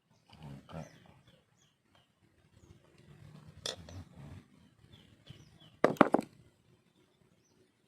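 A few hard knocks, one near the middle and then a quick cluster of three or four louder ones about six seconds in, with low handling rumble between them. Small birds chirp in the background.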